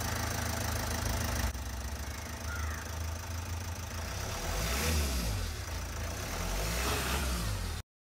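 Car engine running at low speed as the car creeps forward over paving tiles, a steady low rumble that cuts off abruptly near the end.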